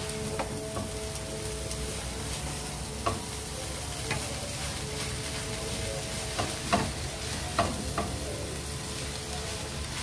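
Wooden spatula stir-frying instant noodles and shredded cabbage in a hot wok: a steady sizzle with scraping, and several sharp knocks of the spatula against the pan.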